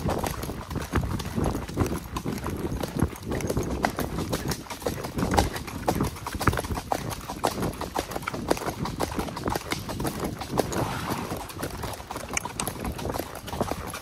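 Horses' hooves clip-clopping as they are ridden along a trail: a continuous, uneven run of hoofbeats.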